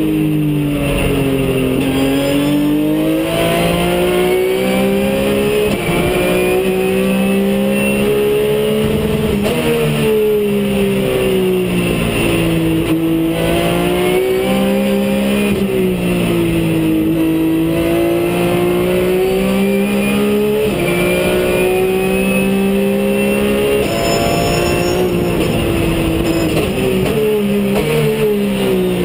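Race car engine heard from inside the cockpit under hard track driving, its note climbing steadily as the car accelerates and falling away on lifts and gear changes, several times over.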